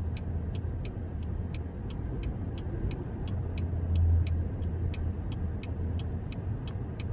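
A steady low rumble with a short, even ticking over it, about three ticks a second.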